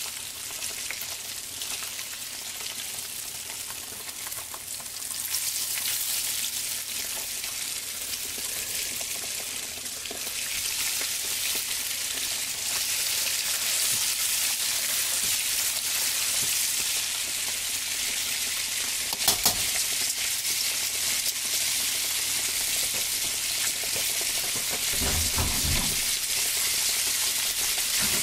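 Breaded pork cutlet shallow-frying in hot oil in a skillet: a steady sizzle that grows louder about five seconds in and again around ten seconds. A sharp double tap comes about two-thirds of the way through, and a few low knocks come near the end.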